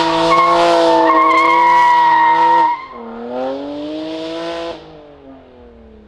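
A catless BMW 335i E92's turbocharged 3.0-litre straight-six held at high revs while the spinning tyres squeal. About two and a half seconds in the note cuts off sharply. The engine then revs up again more quietly, and its pitch falls away and fades near the end.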